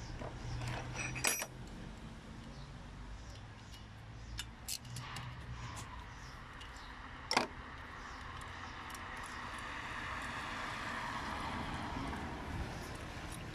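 Metal tools and parts clinking and tapping as the air filter and its base are taken off a car engine, with one sharper knock about seven seconds in.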